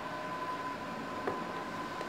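Room tone: a steady hiss with a thin, steady whine, and a single faint click a little past the middle.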